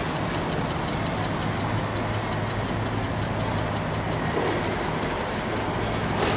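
Modern articulated low-floor electric trams running past on street track: a steady low hum under wheel-on-rail noise.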